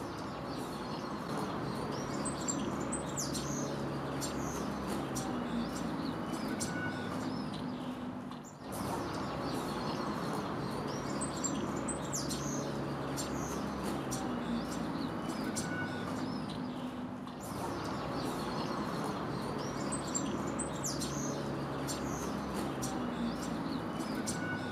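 Birds chirping over a steady background hum. It is a recorded ambience that loops, the same stretch starting over about every eight and a half seconds.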